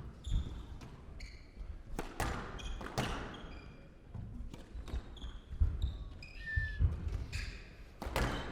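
Squash rally: the ball struck by rackets and smacking off the court walls at irregular intervals of about half a second to a second, with short high squeaks of shoes on the court floor in between.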